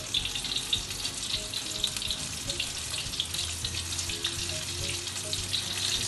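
Batter-coated chicken strips deep-frying in hot oil, a continuous crackling sizzle.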